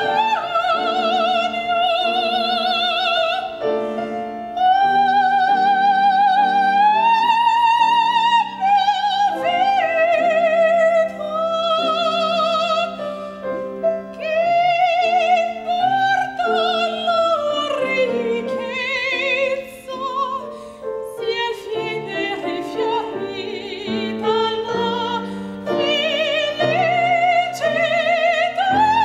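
A female classical voice sings an operatic art song in long phrases with a wide vibrato over grand piano accompaniment.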